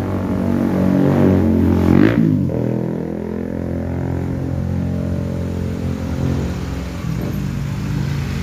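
Motor vehicle engines running past on a road, one going by close and loudest about two seconds in.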